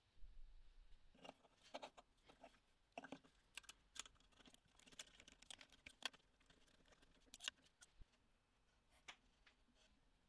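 Faint, scattered clicks and light knocks of a laser engraver's rotary chuck attachment being handled and adjusted by hand, its parts tapping and clicking as they are turned and set.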